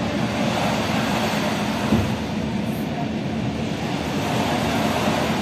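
Passenger train running on the line: a steady rumble of wheels on rail with a faint constant hum, and a single knock about two seconds in.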